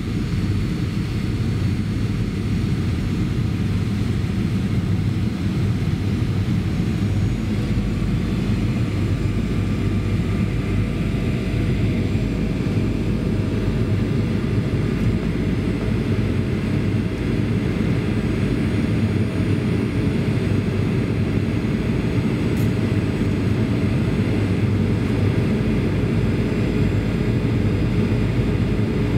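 Steady cabin noise inside a Boeing 737-800 airliner descending on final approach: a constant low rumble of airflow and engines, with a faint steady whine above it.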